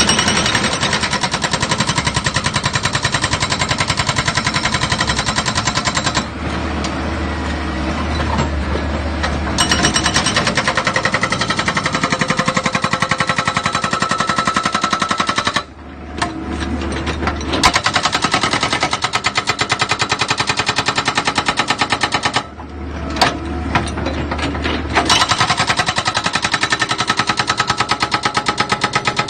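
Machinery making a fast, even, continuous pounding or rattling, broken by several abrupt cuts where the sound changes.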